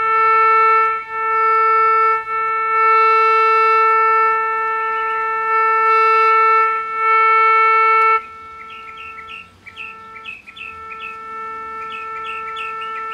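Zenith Royal 51 transistor radio's speaker sounding the signal generator's audio modulation tone, injected at the 10.7 MHz FM IF: a steady buzzy test tone with strong overtones. It shows that the IF stages are passing signal. About eight seconds in, as the generator's tuning dial is turned, the tone drops to a weaker, breaking tone with small chirping whistles over it.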